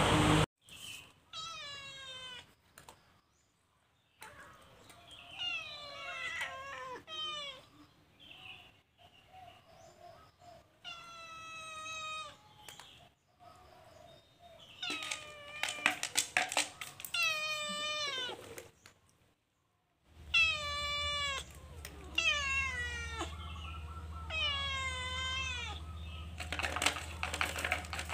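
Cat meowing repeatedly: a string of high calls that each fall in pitch, with sharp clicks and crackles among the later calls and loudest near the end.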